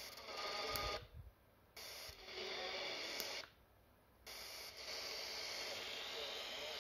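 Retekess TR102 pocket radio's speaker on medium-wave AM giving out static with faint station signals, cutting out briefly twice as the receiver is stepped from one frequency to the next.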